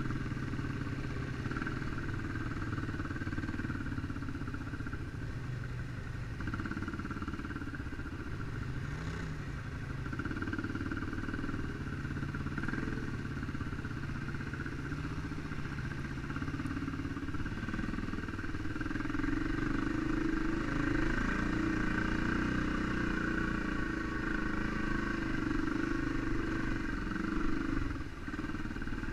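ATV engine running with its pitch and load shifting, getting louder for a while about two-thirds of the way through.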